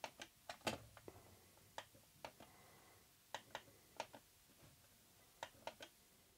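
Faint, irregular clicks, some in quick pairs, typical of a computer mouse's buttons being pressed and released during play; otherwise near silence.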